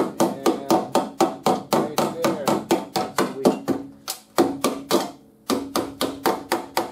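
Body hammer tapping rapidly on thin rusted sheet steel at a wheel arch, about three or four ringing metallic strikes a second, with two short breaks around four and five seconds in. The rusted metal around the holes is being knocked down below the surrounding surface.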